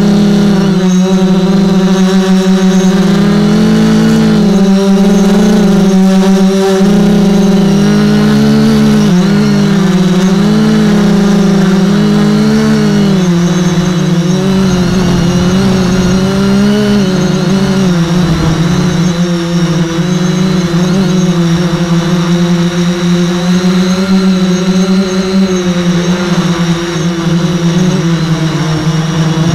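Radio-controlled multicopter's electric motors and propellers buzzing steadily, heard close up from on board, the pitch wavering up and down as the motor speeds change while it manoeuvres.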